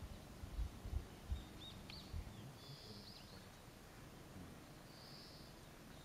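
Wild birds calling: a few short chirps about two seconds in and one brief call near five seconds, over faint outdoor background. A few low bumps come in the first two seconds.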